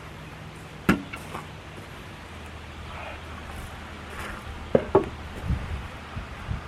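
Sharp wooden knocks from lumber being handled or struck: one about a second in, a close pair nearly five seconds in, and a few lighter clunks between.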